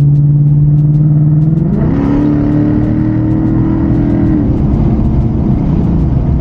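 A car's engine accelerating. Its pitch rises about two seconds in and holds, then it eases off after about four and a half seconds, leaving a steady road and engine rumble.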